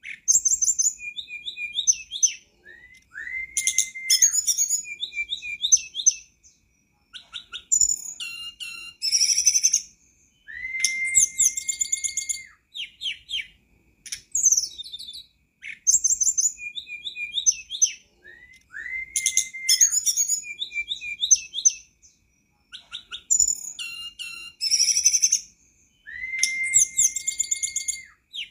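Tledekan gunung (hill blue flycatcher) singing. It repeats the same phrase about every seven seconds: quick high chirps and trills, then one long, level whistle, with short pauses between phrases.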